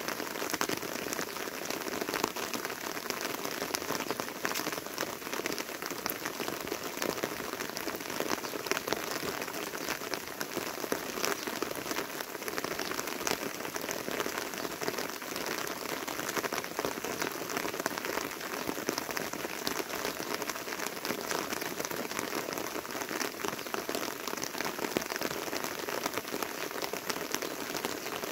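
Steady rain falling, a dense run of small drop ticks over an even hiss.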